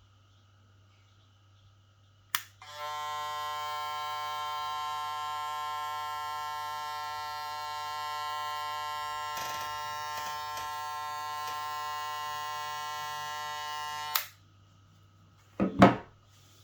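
Steinhart Black Metal hair clipper's magnetic motor switched on with a click and running with a steady buzz for about eleven seconds, then clicked off. Two sharp knocks follow near the end.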